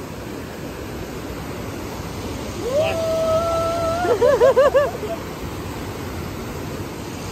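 Rushing mountain stream tumbling over rocks, steady throughout. About three seconds in, a person's voice rises into a long, high held call that breaks into a wavering, warbling cry and stops near the middle.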